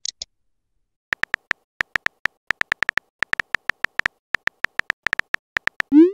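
Texting-app keyboard sound effect: a quick, uneven run of short, identical tapping clicks, about five a second, as a message is typed, with a short rising swoosh at the very end.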